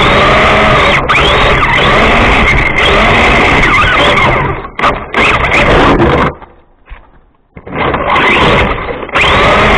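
Electric radio-controlled drift car's motor whining up and down with the throttle, over tyre and road noise, heard close up from a microphone on the car. A little past halfway the sound falls away for about a second, then picks up again.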